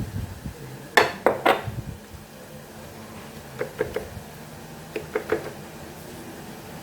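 Clatter of a utensil and pan while pan-frying breadcrumbed sardines: three sharp knocks about a second in, then two groups of lighter clicks.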